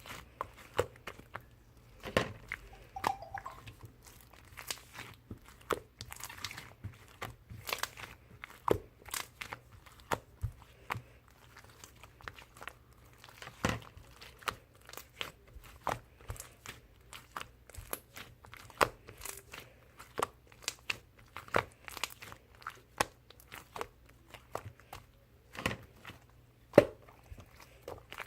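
Marbled slime being squeezed, folded and pressed by hand, giving irregular sharp pops and crackles, a few a second.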